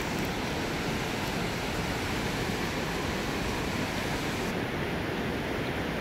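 A mountain river swollen by typhoon rain, running fast and high: a steady, dense rush of water with no breaks. The strength of the current is what the sound shows.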